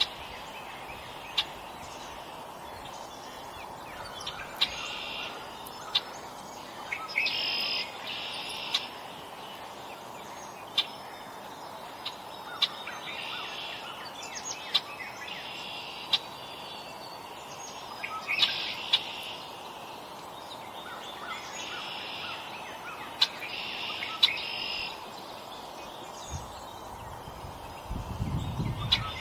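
Small songbirds calling at a feeder: short buzzy chirps come every second or two, mixed with sharp single chips, over a steady low background hum.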